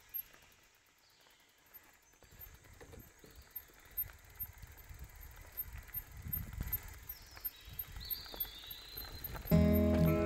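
Biktrix Stunner X e-bike rolling over a gravel dirt road: a low rumble with irregular knocks and rattles from the tyres and frame over stones, growing louder as it goes. Music starts loudly near the end.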